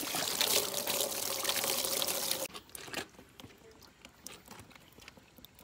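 Water running from a pipe over hands and splashing into a plastic basin, stopping suddenly about two and a half seconds in; after that, only faint small clicks of handling.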